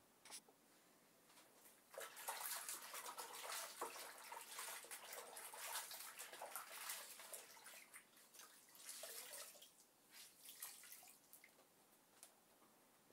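Water splashing and dripping as a wet microfiber cleaning cloth is worked in water, starting about two seconds in and dying away after about eight seconds.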